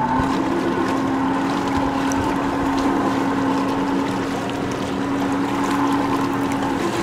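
Motorboat engine running with a steady hum that comes in right at the start, over wind and water noise.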